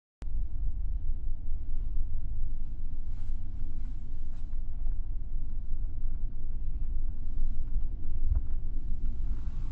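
Steady low rumble of city street noise, starting abruptly a moment in after a brief silence.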